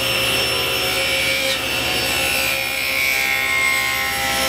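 SawStop table saw cutting a non-through groove along a wooden board fed past the blade, a steady saw-cutting noise with a high whine that slowly sinks in pitch as the blade takes the load.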